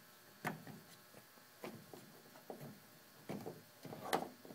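A handheld under-hood work light being handled: a few faint, scattered plastic clicks and knocks, the loudest about four seconds in.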